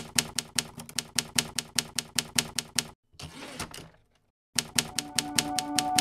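Manual typewriter keys striking in quick, even succession, about five keystrokes a second. The typing pauses for about a second and a half in the middle, then resumes. A steady musical tone starts to come in under the typing near the end.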